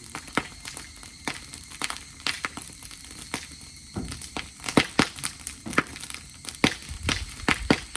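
Dry grass burning in a campfire, crackling with sharp, irregular snaps that grow denser and louder about halfway through. A few low thumps come in around the middle and near the end.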